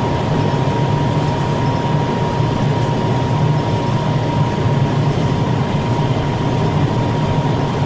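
Large ventilation unit running steadily: a continuous rushing hum with a strong low drone and a thin, steady high whine above it.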